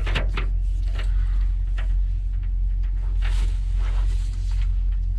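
Solar panel leads and their plastic connectors being handled: a scatter of light clicks and knocks over a steady low rumble.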